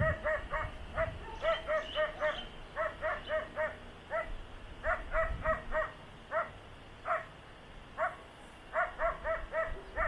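A dog barking repeatedly, fairly high-pitched, in quick runs of three or four barks with single barks in between.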